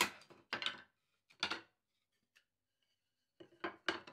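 Wooden frame strips knocking against each other and against a wooden workbench as they are handled and set down: three sharp knocks in the first second and a half, then a quick cluster of clacks near the end.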